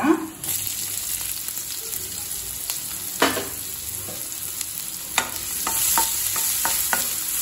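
Oil sizzling in a kadai with mustard seeds, cumin, garlic and curry leaves. About three seconds in, chopped onion is tipped in with one loud stroke. Near the end a wooden spatula stirs it, knocking and scraping on the pan as the sizzling grows louder.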